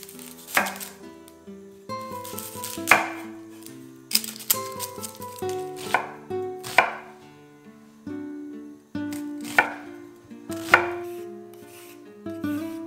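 Chef's knife cutting through an onion and striking an end-grain wooden cutting board: about eight sharp chops, spaced irregularly a second or two apart.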